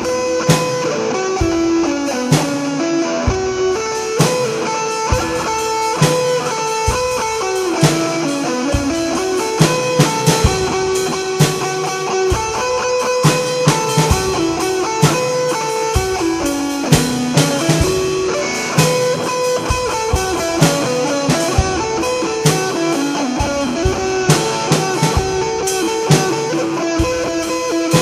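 Instrumental rock: a guitar plays a repeating melodic riff over a drum kit, with drum hits throughout.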